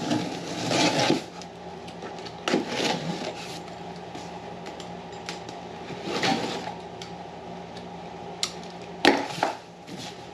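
Boxed lathe stand being unpacked: cardboard and styrofoam packing scraping and rustling in several short bursts, with a few sharp knocks near the end, over a steady low hum.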